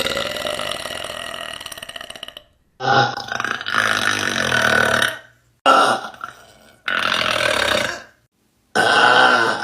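A woman burping loudly, five long burps one after another with short pauses between them. The first and second each last two to three seconds.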